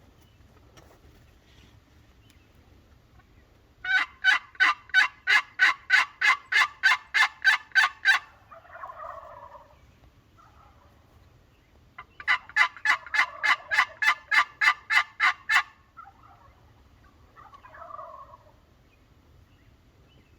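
Two loud runs of rapid, sharp calls, about four notes a second for some four seconds each. Each run is answered a moment later by a fainter, lower gobble from a wild turkey.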